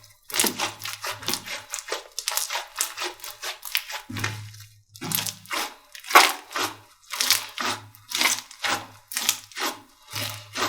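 Slime being squeezed and pressed by hand close to the microphone, giving a quick run of crackling pops several times a second, with a quieter stretch about three seconds in.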